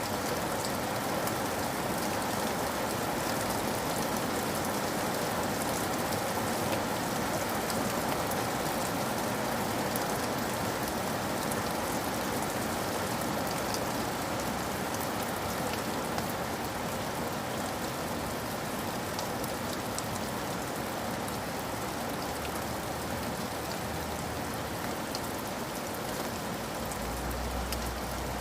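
Steady heavy rain on a cabin roof: a dense, even hiss full of small drop ticks. A low rumble comes in near the end.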